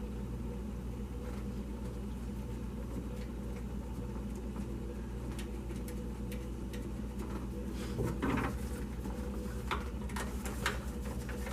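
Small clicks and knocks of hands and tools working a fastener while a sensor is being fitted in an engine bay, a few sharper ones about eight seconds in and near the end, over a steady low hum.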